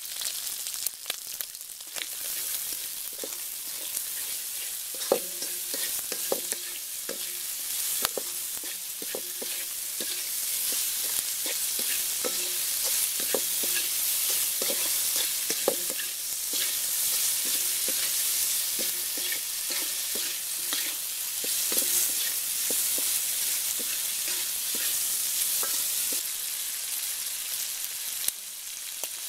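Chicken livers sizzling in a hot metal wok while a wooden spatula stirs them. The spatula knocks and scrapes against the pan in frequent short strokes.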